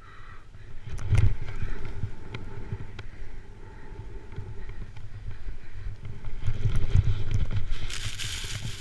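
Wind rumbling on a GoPro's microphone and a snowboard sliding over snow during a run down a slope, with heavier buffeting about a second in and again near the end, followed by a hissing scrape of the board's edge on the snow as the rider turns.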